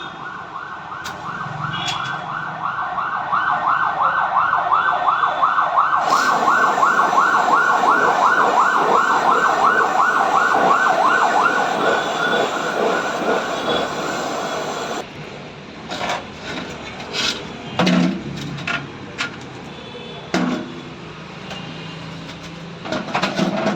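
A fast warbling siren, about four warbles a second, swelling in level and then cutting off suddenly about fifteen seconds in. After it come scattered clicks and a few dull thumps.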